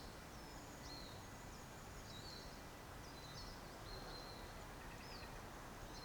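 Faint songbird song: short, high whistled phrases recurring every second or so, over a steady low hum of distant road traffic.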